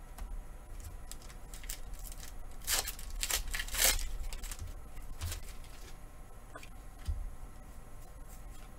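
Pokémon booster pack foil wrapper crinkling and being torn open in a few short rips about three to four seconds in, followed by quieter handling of the trading cards inside.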